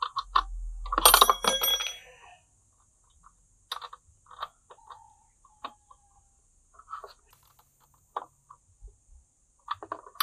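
Metal clinks and clicks of a small wrench working the bolts on a motorcycle's muffler and its mounting bracket, with a louder ringing clatter of metal tools about a second in.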